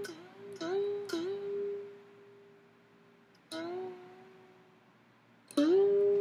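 A voice humming the same note over and over: several short notes that each scoop up into the pitch in the first second and a half, the last held briefly, a softer one around the middle, and a loud one starting near the end and held.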